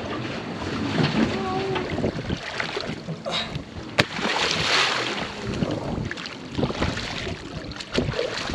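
Wind noise and water sounds aboard a small fishing boat, with a sharp knock about four seconds in followed by a brief swell of hiss, and faint murmured voices.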